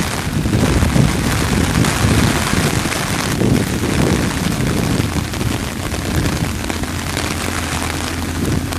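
Steady rain pouring down, with a dense low rumble underneath.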